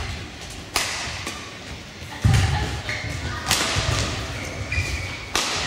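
Badminton rally: rackets striking the shuttlecock three times, a couple of seconds apart, each hit a sharp crack, with heavy thudding footfalls of the players on the court floor in between.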